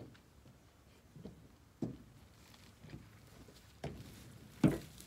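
A handful of separate knocks and thumps at uneven intervals over a faint background, the loudest one near the end.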